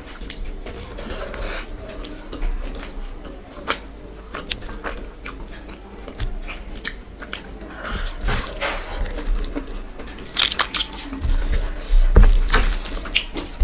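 Close-miked eating sounds: a hand squishing and mixing rice with curry gravy, and wet chewing and lip smacks, in irregular clicks that grow louder near the end.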